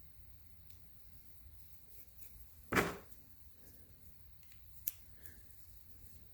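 A handmade steel bandsaw blade-guide holder being fitted into its housing: one short, loud metal clunk a little under 3 seconds in, then a brief sharp click about two seconds later, with quiet handling in between.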